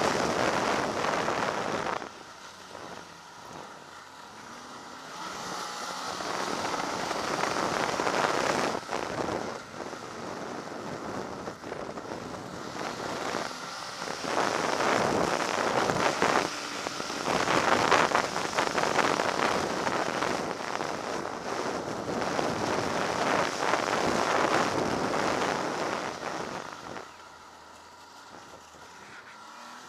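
Ski-Doo snowmobile engine and track running along a snowy trail, with a steady hiss of noise over it. The sound rises and falls with the throttle, dropping off about two seconds in and again near the end.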